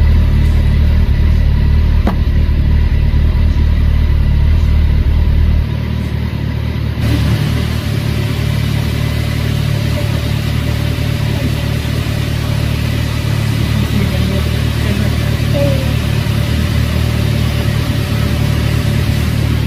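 A vehicle engine running steadily and loudly. Its sound changes abruptly about six seconds in and again a second later.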